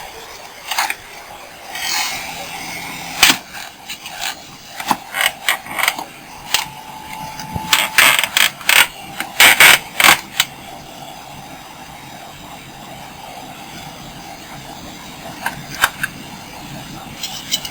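Hard parts being handled and fitted during a refrigerator repair: an irregular run of clicks, knocks and rattles for about ten seconds, then a steady low hum.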